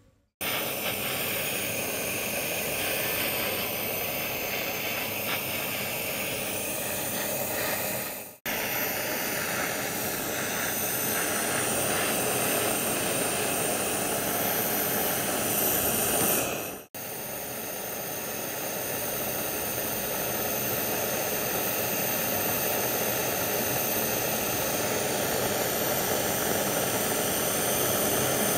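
Gas soldering torch burning with a steady hiss, its flame heating a bangle's joint for soldering. The sound drops out suddenly twice, about a third and about two-thirds of the way through.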